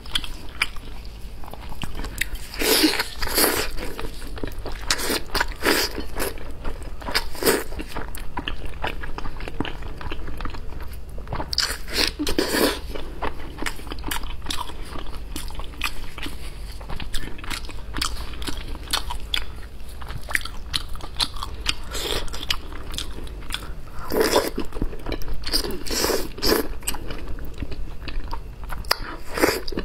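Close-up eating sounds: biting into and chewing braised lamb's-head meat in spicy sauce, with several louder bursts of crackly chewing clicks.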